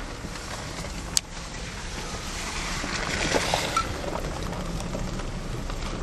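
Road and engine noise heard inside a moving vehicle's cabin: a steady low rumble with rushing noise that swells around the middle, and one sharp click about a second in.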